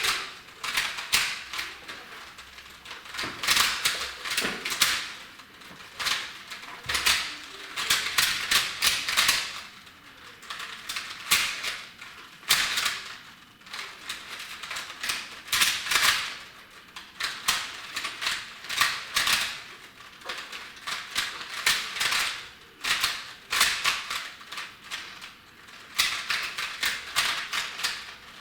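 Plastic Rubik's cubes being turned rapidly by hand in a speed-solve: bursts of fast clicking and clacking from the twisting layers, broken by short pauses between sequences of moves.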